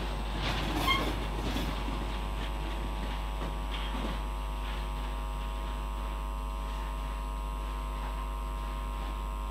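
Loaded freight hopper wagons rolling past, wheels clattering over the rail joints with a brief squeal about a second in, the clatter thinning out as the train pulls away. A steady electrical hum from a faulty microphone runs under it all and is the most constant sound.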